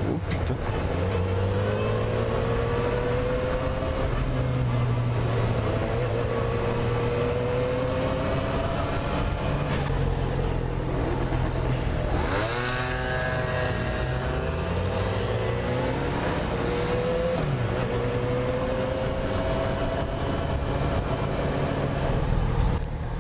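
Motorcycle engine pulling through the gears: its pitch climbs steadily, drops back at each shift and climbs again. About halfway through, the pitch falls sharply and then rises quickly.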